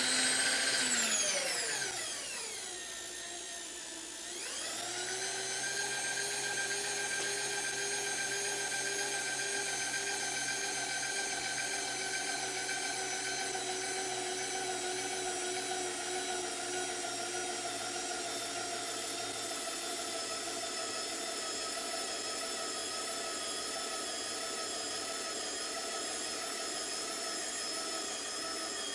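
An electric motor whining. It winds down over the first couple of seconds, starts up again about four seconds in, and then runs at a steady pitch.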